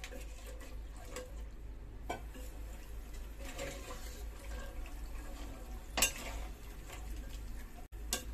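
A slotted spoon stirring chickpeas into a thick tomato masala in a pressure cooker pot, scraping and knocking against the pot now and then, with the loudest knock about six seconds in.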